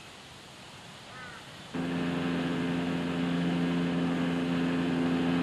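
Outboard motor on a river dinghy running at a steady, even drone. It cuts in suddenly a little under two seconds in, after a quiet start.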